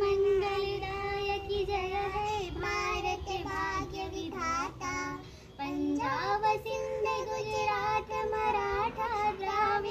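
Children singing together in slow, long-held notes, with a woman's voice among them and a short break for breath a little before halfway through.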